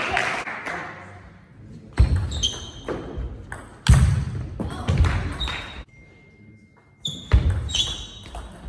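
Table tennis rally: the celluloid-type ball ticking sharply off the bats and the table, each tick ringing briefly in the hall's echo, mixed with a few low thuds. There is a lull of about a second near the end before the ticking starts again.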